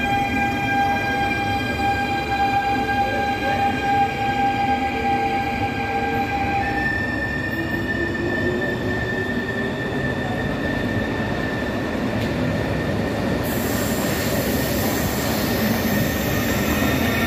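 Stadler FLIRT ETR 524 electric train at the platform: steady high-pitched whining tones over a continuous rumble. About seven seconds in, the whine jumps to a new pitch, and from about thirteen seconds a brighter hiss joins it.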